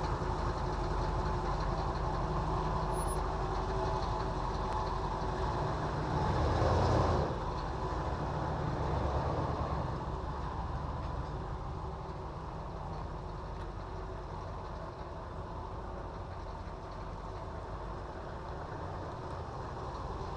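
An engine running steadily with a low hum, briefly louder about six to seven seconds in.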